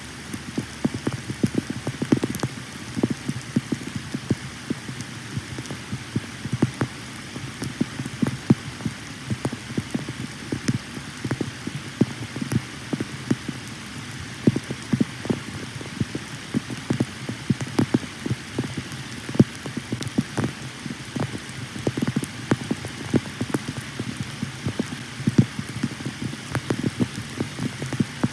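Rain falling, heard as a steady hiss with many irregular sharp raindrop taps close to the microphone.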